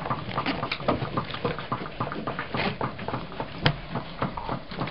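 Felt-tip pens tapping and scratching on paper: quick, irregular taps, several a second, with one sharper click near the end.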